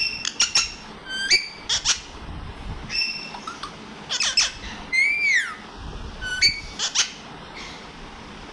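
Pet parrot calling: a string of short, sharp squawks and whistled chirps in quick clusters, with one longer call that rises then falls about five seconds in.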